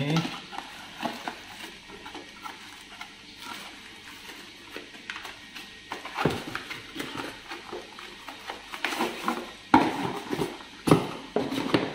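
Cardboard packaging and plastic wrapping being handled while parts are taken out of a box: rustling and scraping with scattered light knocks, and two sharper knocks near the end.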